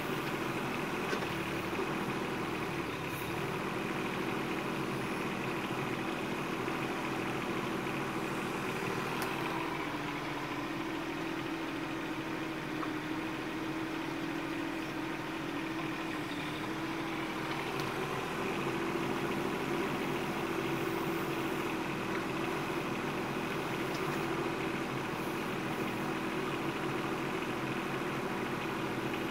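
Bobcat 418 mini excavator's small diesel engine running steadily while the machine digs, its note dipping slightly a few times.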